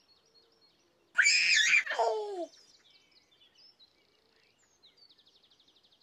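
A baby giggling for about a second and a half, the laugh sliding down in pitch at the end, over faint birdsong chirping throughout.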